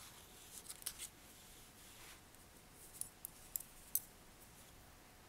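Faint clicks and taps of metal knitting needles being handled and knocking together, a few sharp ticks about a second in and a cluster around three to four seconds in.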